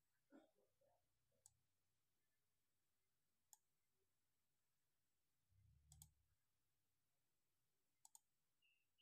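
Faint computer mouse clicks: single clicks about a second and a half and three and a half seconds in, then two quick double clicks, the first with a soft low bump just before it.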